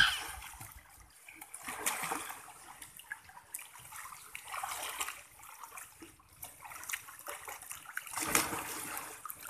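Swimming-pool water splashing and sloshing as children wade and swim, uneven, with louder splashes about two seconds in and again near the end.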